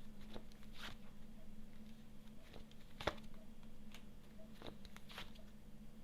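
Tarot cards being drawn and laid down: faint, scattered card flicks and soft taps, about seven in six seconds, over a low steady hum.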